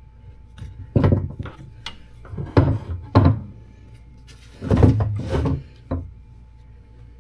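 A string of irregular knocks and clunks with some scraping, as hard parts or tools are handled and set down, with a longer clatter about five seconds in.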